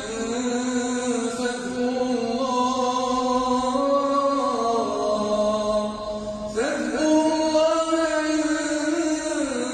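A man reciting the Quran in a melodic chant, holding long drawn-out notes with slow bends in pitch. A new phrase begins with a rising glide about two-thirds of the way through.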